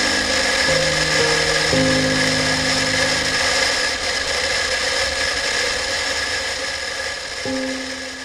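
Steady wind and riding noise from a Honda Deauville NT700V motorcycle under way, with a steady high whine, heard through a bike-mounted action camera. Soft piano notes play over it in the first few seconds and again near the end, as the riding noise begins to fade.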